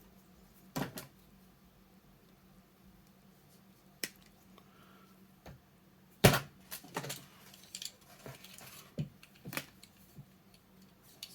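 Light clicks and taps of small tools and wires being handled while wiring a model locomotive decoder, coming at irregular intervals, the loudest about six seconds in.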